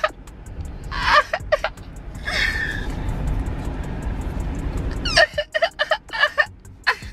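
A man laughing loudly, with short bursts of voice around a long, rough, breathy stretch of laughter in the middle.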